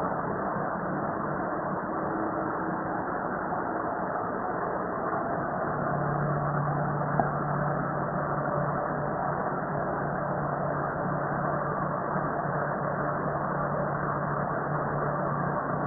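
Steady mechanical running noise, like a motor. A low hum grows stronger about six seconds in, and there is a single short click about seven seconds in.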